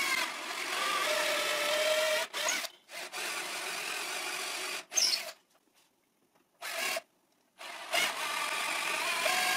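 Cordless drill running in short runs, boring a twist bit into a wooden chair leg to cut half-depth counterbore holes for screw heads. There are three main runs with a pause of a couple of seconds past the middle, broken by one brief blip.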